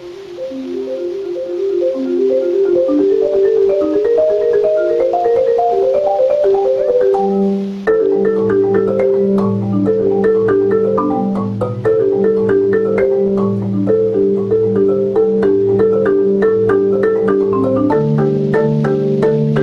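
Background music: a melody of short struck notes, joined about eight seconds in by a lower bass line that fills out the sound.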